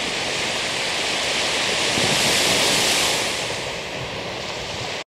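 Ocean surf: small waves breaking and washing up a sand beach, a steady hiss that swells to its loudest about halfway and eases off again, then cuts off suddenly near the end.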